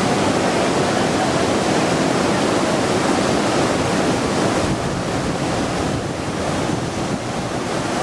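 Waterfall, a steady rush of falling water that drops a little in level and loses some of its hiss from about five seconds in until near the end.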